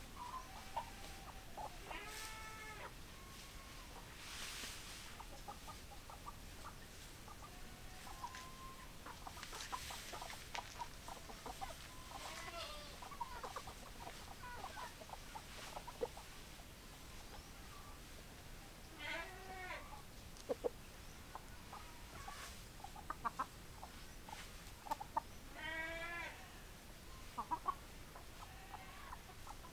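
Hens clucking, with several louder short calls spread through and soft clicking between them, plus a couple of brief rustles.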